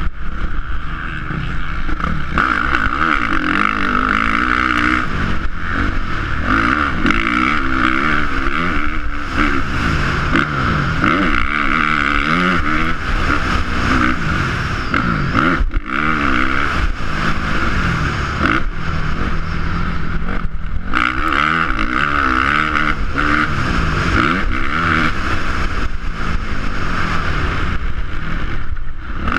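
Dirt bike engine revving up and down over and over through the gears as it is ridden hard around a motocross track. The throttle is briefly cut twice in the second half.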